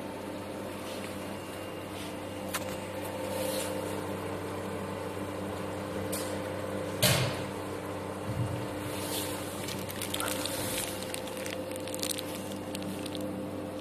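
Steady hum of a running laser hair removal machine, several steady tones together, with plastic bags crinkling and handling clicks over it; a sharp knock about seven seconds in is the loudest sound.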